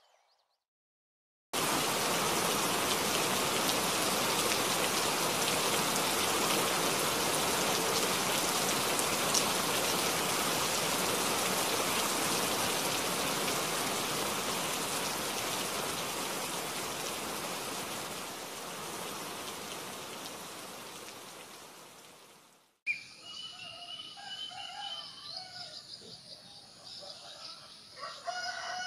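Steady hiss of heavy rain, fading over its last few seconds and cutting off abruptly about three-quarters of the way through. Birds then chirp, and a rooster begins to crow near the end.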